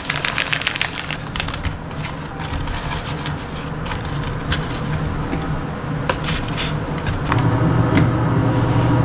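Plastic bag of sweet potato starch crinkling as starch is shaken out into a steel tray, then fingers pressing and turning lotus root slices in the starch with soft scattered crackles. About seven seconds in, a steady low hum starts and grows louder.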